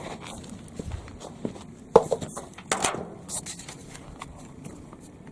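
Footsteps with scattered light knocks and clatter of things being handled, the sharpest knock about two seconds in.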